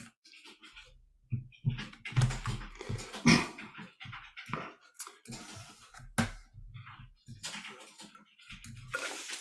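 Irregular clicks, taps and rustling close to the microphone, with a few sharper clicks: a computer keyboard and mouse being worked to fold the text in the editor.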